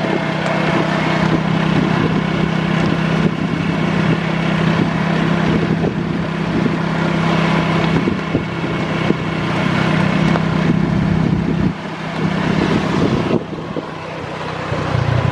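Vehicle engine running steadily while driving through heavy rain on a flooded road, under a dense rushing noise of water and wind, easing briefly near the end.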